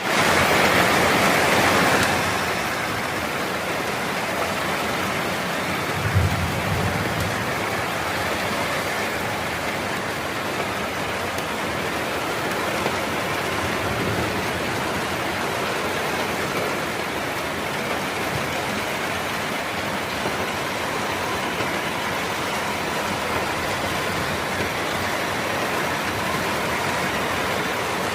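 Steady rain falling on a roof, heard from below as a dense, even patter. It is louder for the first two seconds, and a dull low thump stands out about six seconds in.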